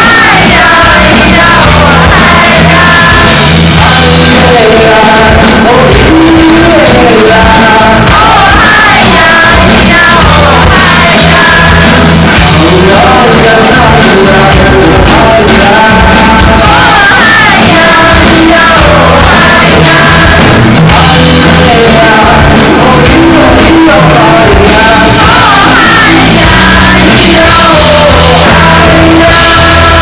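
Live song: a man singing into a microphone while strumming an acoustic guitar, recorded very loud.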